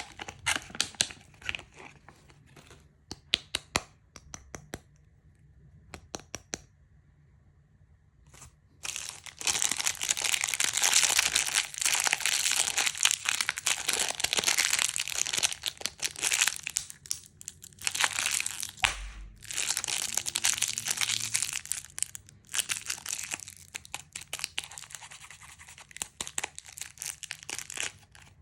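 Plastic candy wrappers being crinkled and torn open. There are scattered crackles at first, then a short lull, then from about nine seconds in a long stretch of dense, loud crinkling.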